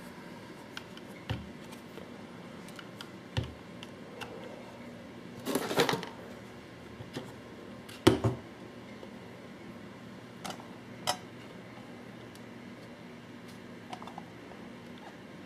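Scattered clicks and knocks of a hard plastic paintball hopper being handled, with a short rattling scrape before the middle and a sharp knock just after it, the loudest sound here.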